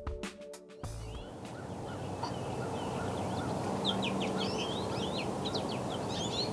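Songbirds chirping in a dawn chorus: many short, quick high calls over a steady outdoor hiss, growing busier from about halfway through. A bit of music ends in the first second.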